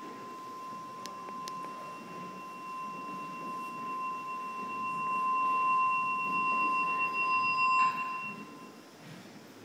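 A sustained, pure ringing tone from the installation's soundtrack, with a fainter higher tone above it, growing steadily louder and then cutting off abruptly about eight and a half seconds in.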